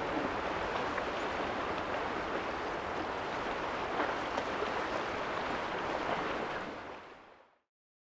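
Steady wash of lake water against a rocky shore with some wind, fading out to silence near the end.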